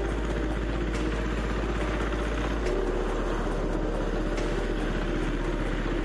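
Power tiller engine running steadily as the tiller is driven over harvested rice straw to thresh the paddy.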